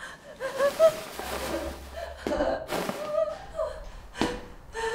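A frightened woman gasping and whimpering, short breathy panicked breaths broken by high whimpers, with a sharp intake of breath about four seconds in.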